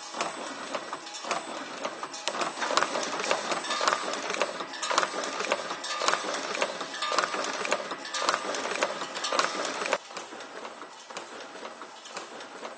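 Automatic wire-bending machine running at 60 pieces per minute, its tooling clacking and snapping in a rhythm of about one cycle a second as it feeds and bends steel wire. The clatter drops in level about ten seconds in.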